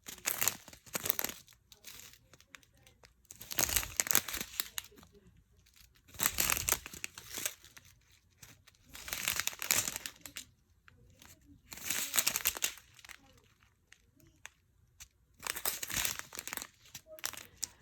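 Small plastic bags of diamond-painting drills being handled and turned over, crinkling in about six separate bursts a few seconds apart.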